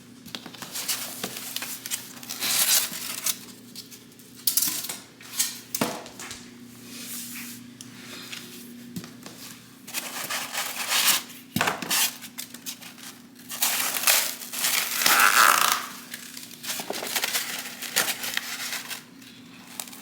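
Crinkling, tearing and rustling of packaging as new flat-pack furniture is unpacked, with occasional light knocks of parts being handled, over a faint steady hum.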